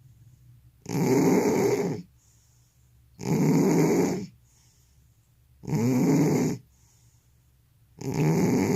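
An old cat snoring in its sleep: a loud, rasping snore about every two and a half seconds, each lasting about a second, with a faint breath between them.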